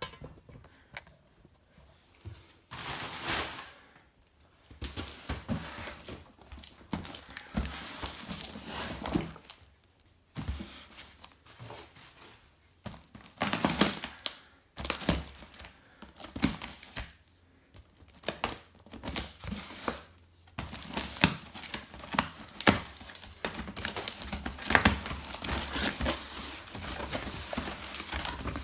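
Packing tape on a cardboard box being slit with a knife and torn, then the box flaps opening and crumpled brown kraft packing paper rustling, in irregular bursts with short pauses.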